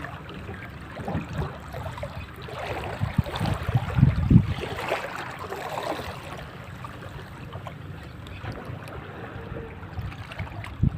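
Water and wind noise with scattered low thumps, the loudest about four seconds in.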